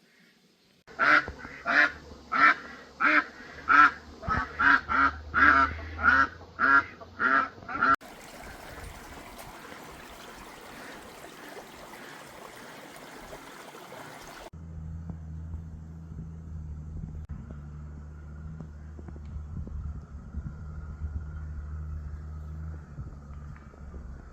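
Farmyard waterfowl calling loudly and repeatedly, about two calls a second for some seven seconds. This is followed by a steady hiss and then a low steady hum.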